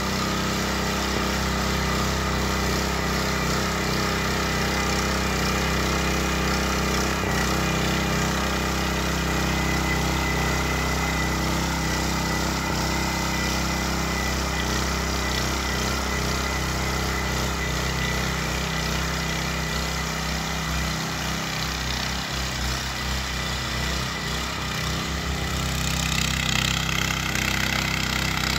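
Ruris 751KS walk-behind rotary tiller with eight tine knives, its engine running steadily as the tines churn through garden soil. Near the end it grows a little louder and harsher.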